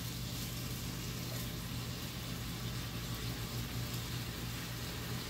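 Steady low hiss of food cooking on a gas stove, with a steady low hum underneath and no distinct knocks or clatter.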